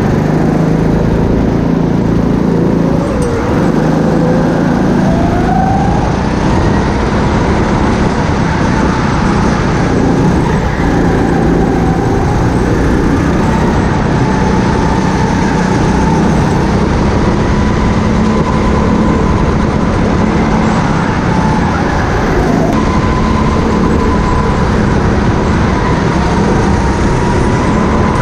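Go-kart engine running continuously as the kart drives, heard close up from the kart itself, its note wavering slightly with the throttle over a steady wash of noise.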